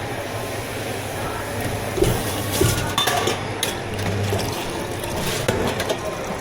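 Liquid pouring into a drink cup, with several sharp knocks and clinks of cups and tools from about two seconds in.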